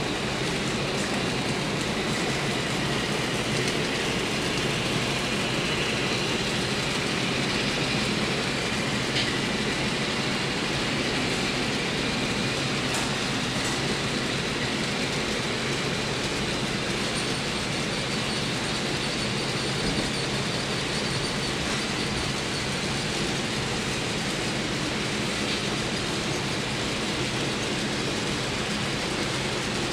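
Model freight train running steadily past on a layout: the model diesel locomotives and the freight cars' wheels rolling on the track, without a break.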